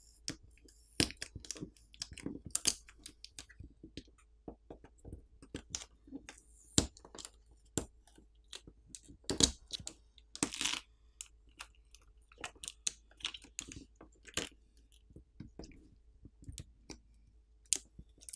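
Irregular crackling and clicking as the adhesive pull tabs under a smartphone battery are pulled and the adhesive stretches and peels away, with a few sharper cracks and a short crackling run about ten seconds in.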